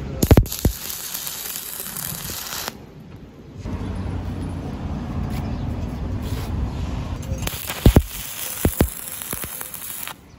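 Stick welding arc on steel plate: sharp pops as the arc is struck near the start and again around eight seconds in, with crackling and sizzling while the electrode burns along the root gap.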